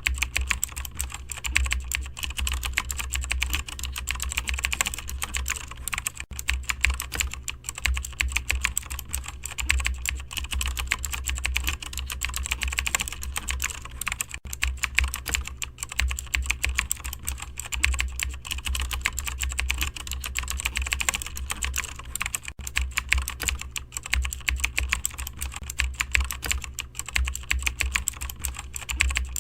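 Continuous fast typing on a computer keyboard, keys clicking in quick irregular runs, over a steady low hum.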